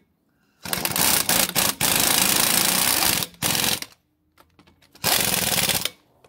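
Impact wrench hammering a lug nut tight through a 140 foot-pound torque stick, in three bursts: a long one of about two and a half seconds, a short one, then one of about a second. The wrench keeps hammering until the torque stick holds the nut at 140 foot-pounds and it stops turning.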